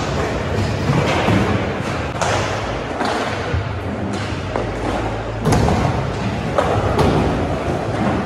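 Skateboard wheels rolling around a skatepark bowl with a steady rumble, broken by several sharp thuds and clacks of the board and trucks striking the surface, the loudest about five and a half seconds in.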